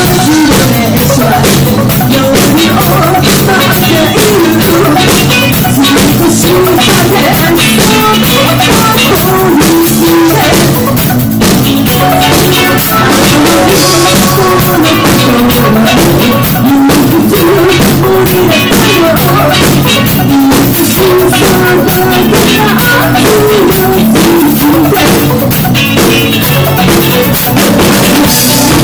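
Live rock band playing loudly: a woman singing into a microphone over a drum kit and electric guitar.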